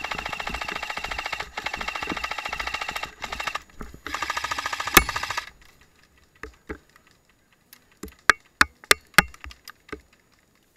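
Airsoft electric support gun, a light-machine-gun replica, firing on full auto: a long rapid rattling burst of about three and a half seconds, a brief pause, then a second burst of just over a second. Later it is followed by a scattering of separate sharp clicks.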